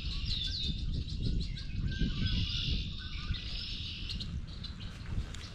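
Songbirds singing from the shore: quick downward-sweeping whistles and fast chirping trills, repeated, over a steady low rumble.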